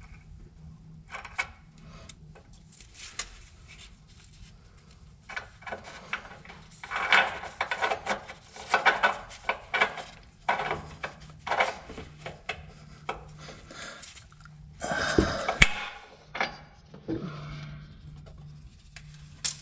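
A magnetic pick-up tool scraping and clinking against metal inside a steel pickup-truck frame rail as it fishes for a part that fell down inside. The sound comes in irregular bursts of scraping and rattling, loudest about fifteen seconds in.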